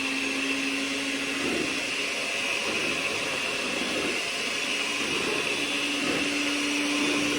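Electric mixer running steadily, mixing cake batter; its motor whir wavers in the middle and comes back slightly higher near the end as the beaters work through the batter.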